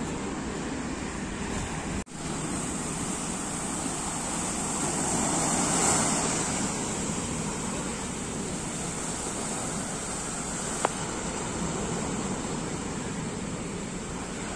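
Sea waves breaking and washing up a sandy shore: a steady rushing surf that swells to its loudest about six seconds in. There is a brief dropout about two seconds in and one sharp click near the end.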